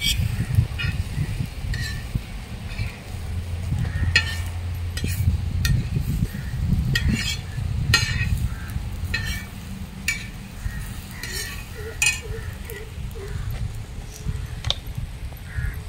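Metal spatula clinking and scraping against a wide iron pan as spice-coated mutton liver is stirred, in scattered sharp clinks over a low rumble.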